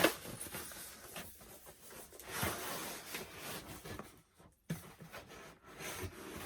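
Doll packaging being handled: rustling and rubbing of cardboard and plastic, with a sharp knock at the start and another light knock later.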